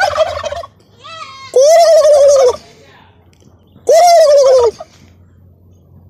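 Domestic turkey toms gobbling together: two loud gobbles of about a second each, a couple of seconds apart, each a fast rattle over a pitch that rises and then falls away. The end of an earlier gobble trails off at the very start.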